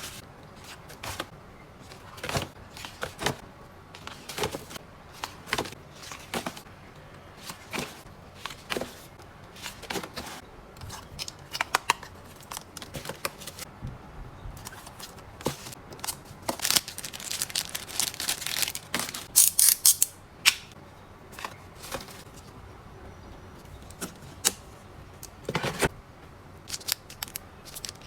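Packaging and small items being handled: scattered clicks and taps, with a stretch of plastic crinkling and rustling about seventeen to twenty seconds in.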